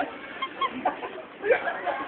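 A few short, high vocal yelps from young people, which the tagger hears as clucking, against a background of restaurant chatter.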